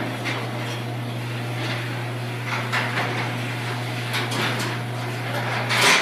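Rail-type garage door opener motor running with a steady hum as it lowers a sectional garage door, the rollers and panel hinges clicking and rattling in the tracks. The door meets the floor with a knock near the end and the motor stops.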